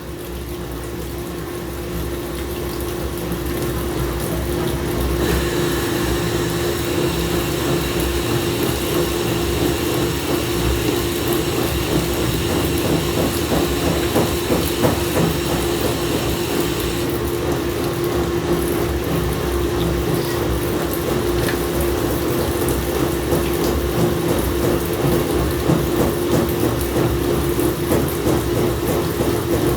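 Samsung washing machine running, making noises the owner finds abnormal: a steady motor hum over a low rumble and water sounds, growing louder over the first few seconds. A higher hiss joins about five seconds in and stops about seventeen seconds in.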